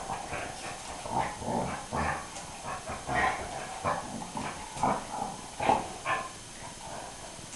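A dog making short play noises, a string of brief growls and whines about once a second, while it play-fights with a cat. The noises die away near the end.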